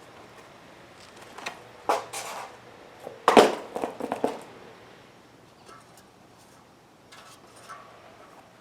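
Fat bike tire being worked onto its rim by hand: a handful of short rubbing and knocking handling sounds, the loudest about three seconds in, then only a few faint ticks.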